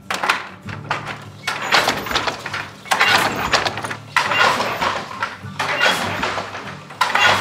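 Wooden hand loom clattering and knocking as it is worked by hand, in rattling bursts of about a second each with sharp knocks between them.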